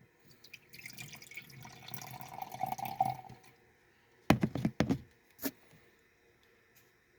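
Canned espresso-with-cream coffee being sipped, liquid sloshing and slurping for about three seconds, followed by a few short sharp clicks and knocks about four seconds in.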